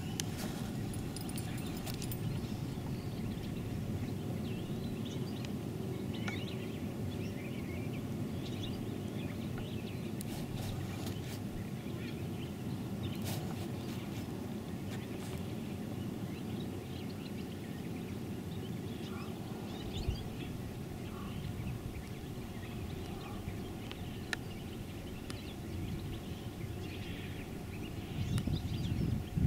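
Steady low rumble of outdoor background noise, with faint, scattered bird chirps and a few small clicks over it.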